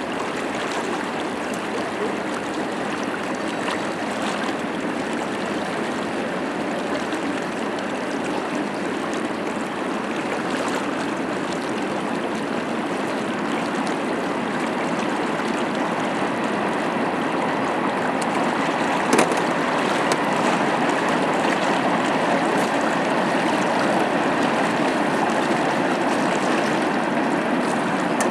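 Rushing water of the flood-swollen Arkansas River, a steady even noise that swells slightly over time, with a single sharp click about two-thirds of the way through.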